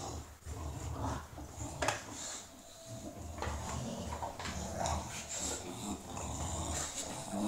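Two English bulldogs play-fighting, with low, irregular growling and grunting and a few short sharp noises.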